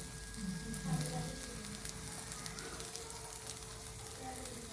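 Chicken-mince-stuffed capsicum rings sizzling on a tava in a little oil, with light crackling and a faint steady hum underneath.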